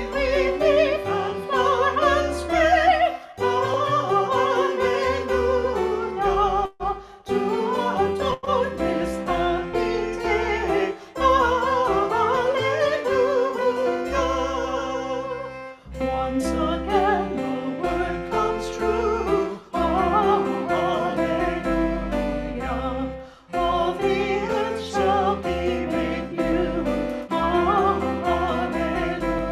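A hymn sung by two singers with instrumental accompaniment, in phrases with short breaks about 7, 16 and 23.5 seconds in.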